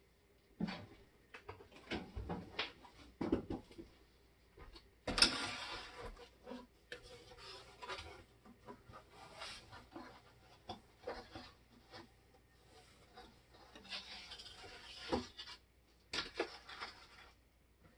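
Scattered knocks, clicks and rustling scrapes of someone moving things about in a kitchen, the loudest a sudden rustling scrape about five seconds in and a few more near the end.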